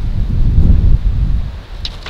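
Wind buffeting the microphone, a loud gusting rumble that eases off after about a second and a half, with rustling of brush and one short click near the end.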